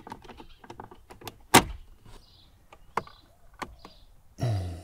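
Sharp plastic clicks and knocks from a Toyota Yaris (Vitz) dashboard cup holder being squeezed and worked by hand to free its locking tab, with one loud click about one and a half seconds in and a few lighter ones later.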